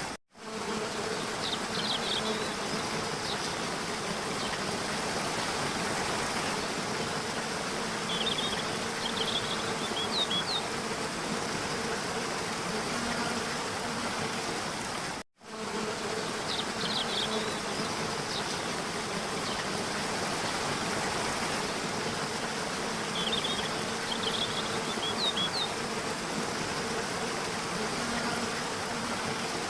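Steady buzzing hum of flying insects over an even hiss, with short clusters of high bird chirps a few times. The sound cuts out for a moment about halfway through.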